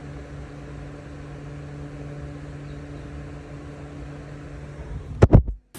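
A steady low mechanical hum over a light hiss, as from a small motor or fan running. Near the end come two loud knocks close together, and then the sound cuts out abruptly.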